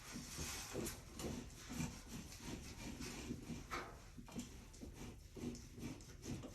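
Electrical cable and wire snake being pulled through a hole in the wall, rubbing and scraping in irregular strokes about every half second.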